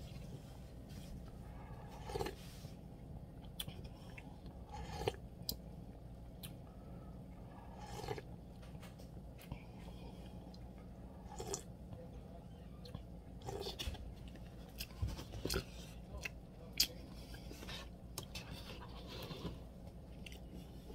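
A person eating noodle soup: chewing and sips from a paper bowl, with short clicks and scrapes every second or two over a steady low hum.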